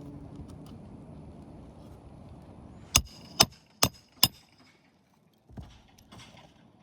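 Roofing hammer driving a nail through an asphalt shingle: four sharp, ringing strikes in quick succession, about half a second apart, a few seconds in, after a faint rustle.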